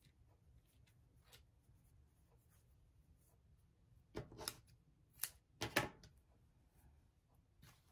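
Fabric being handled: soft rubbing and rustling as a strip of checked homespun cloth is knotted around a stuffed muslin snowman, with a few louder brief rustles between about four and six seconds in.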